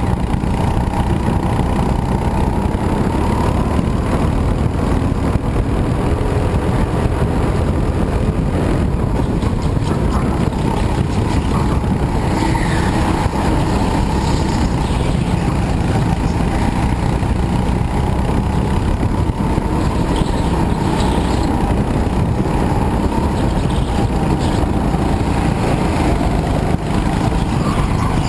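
Go-kart engine heard from on board the kart, running hard through a lap with its pitch rising and falling as the driver accelerates and slows for corners, over a heavy steady rumble.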